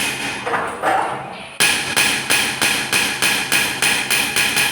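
Metal-on-metal strikes in goldsmith work on a gold bracelet, each with a short ringing. Two single strikes come first, then a fast, even run of about four strikes a second.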